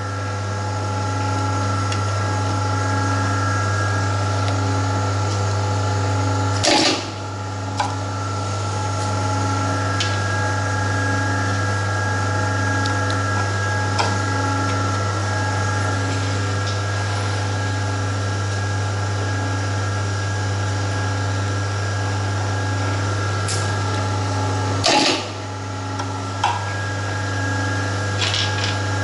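A metal zipper slider mounting and bottom stop machine running with a steady electric motor hum, with a sharp clunk twice, about a quarter of the way in and again near the end, each time the hum briefly dips.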